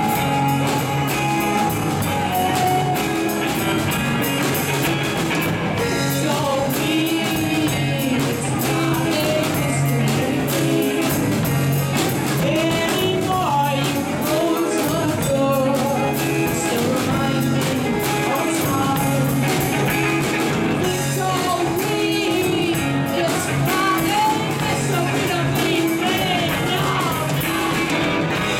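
Live rock band playing: electric guitar, electric bass and a Ludwig drum kit, with lead vocals sung over them.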